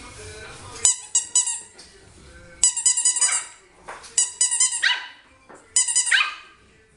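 A dog barking in quick runs of high-pitched barks, in four bursts about a second and a half apart. Two of the bursts end in a rising cry.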